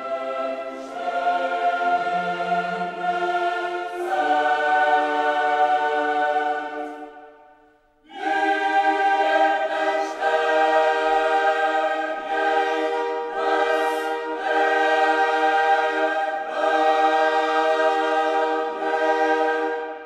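Background choral music: a choir singing long held chords. It fades out about seven seconds in and starts again with a new chord a second later.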